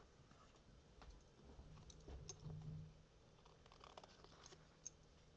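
Near silence with faint, scattered small taps and clicks from handling card-making supplies.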